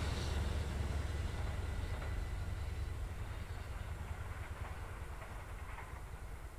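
A Dutch NS blue-and-yellow electric passenger train running away along the track, its rumble fading steadily as it recedes.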